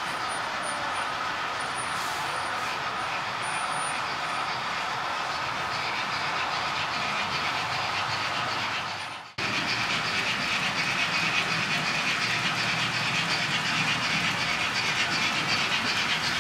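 Model trains running on an exhibition layout: a steady rolling hiss of wheels on track over hall ambience. The sound fades briefly and cuts about nine seconds in, then resumes a little louder.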